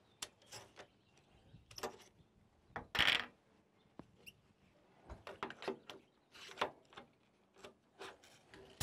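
Hydraulic hose quick couplers being pushed into a coupler block on a wheel loader and its lever handle worked: a string of metal clicks and clacks, the loudest about three seconds in.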